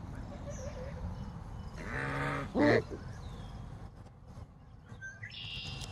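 Domestic goose calling twice about two seconds in: a drawn-out low honk, then a short loud one, over a steady background of the flock, with a brief high peep near the end.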